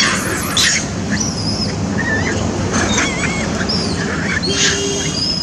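Macaques squabbling: a harsh scream right at the start, then a run of short, high squeaks and wavering chirps.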